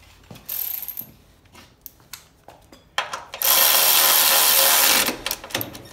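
Cordless electric ratchet spinning a 10 mm bolt tight: a short burst about half a second in, then a steady run of about a second and a half from about three and a half seconds in, with a few light clicks of the tool and socket between.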